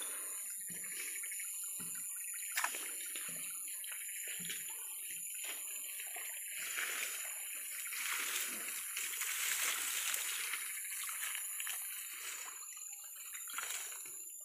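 Irregular splashing and sloshing of water as a hooked limbat (walking catfish) thrashes while being landed.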